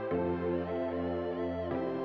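Electronic background music with sustained, held chords that change about a tenth of a second in and again near the end.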